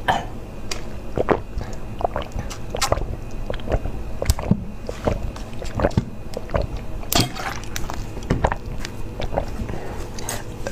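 A person gulping a drink straight from a bottle, swallowing repeatedly in quick wet gulps about one or two a second, picked up close by a clip-on microphone.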